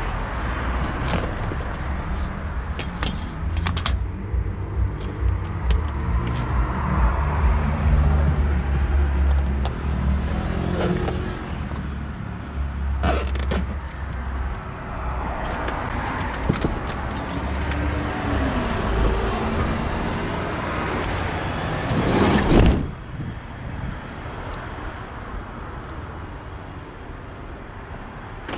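A motor vehicle rumbling close by, with scattered light metallic clicks and clinks of handling. A loud rush builds about three-quarters of the way through and cuts off suddenly, leaving quieter background.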